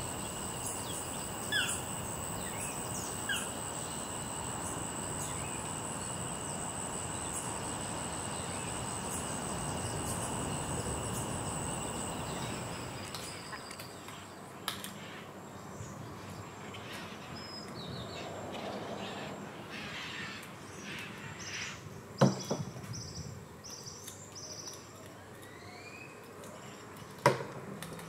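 Tropical rainforest ambience. In the first half there is a steady high-pitched insect drone over a low rumble, with a few short bird chirps. In the second half the sound is quieter, with scattered chirps and two sharp knocks, the loudest sounds.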